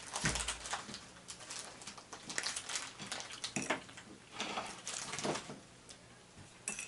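Faint, scattered clinks and scrapes of a fork and knife against plates and a cake tray.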